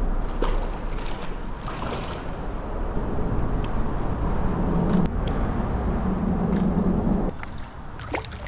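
Steady low rumble of wind noise on the camera microphone while a small common carp is played on rod and reel toward the landing net, with a sharp click about five seconds in. The rumble stops about seven seconds in, leaving a quieter wash of water.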